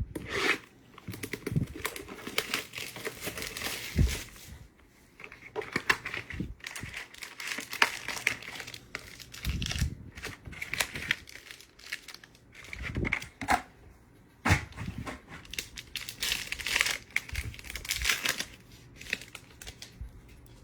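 Plastic wrappers crinkling and tearing, with scattered clicks and taps of handling: a sealed box of trading-card packs being unwrapped and its packs torn open.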